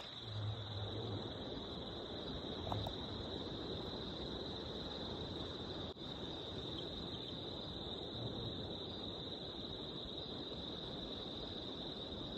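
Night insects calling in one steady high-pitched drone over a hiss of background noise, with a faint low hum a few times.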